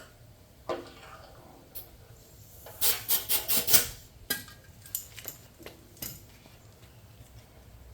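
Hand-handling noises: a quick run of loud scraping strokes about three seconds in, with scattered clicks and knocks before and after.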